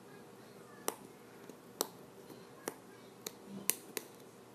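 Light, sharp clicks of a tiny precision screwdriver working at the small screws in a Samsung Galaxy S3's plastic frame. There are six clicks, about a second apart at first, then quicker near the end.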